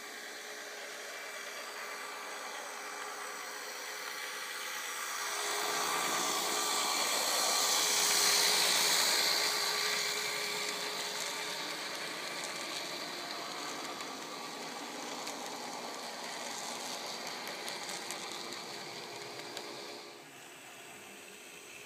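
Märklin miniclub Z-scale model train running past close by: a high, steady whir from its small motor and wheels that swells as the locomotive nears, stays even while the coaches roll past, then drops off sharply near the end.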